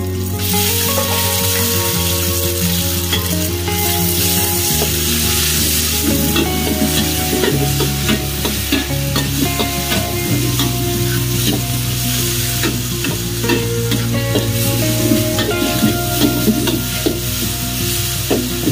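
Marinated pork sizzling hard as it goes into a very hot wok over a high gas flame, then stir-fried, with a metal spatula scraping and clattering against the wok again and again. The sizzle gets louder just after the start as the meat hits the pan.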